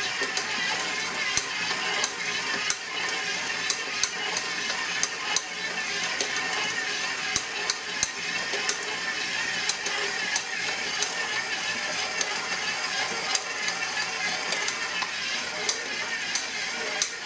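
KitchenAid ProLine 7-quart stand mixer running with a steady motor and gear hum, broken by sharp clicks about one or two a second from the gear assembly, very loud, louder than the mixing noise itself. The clicking is a fault in a new machine.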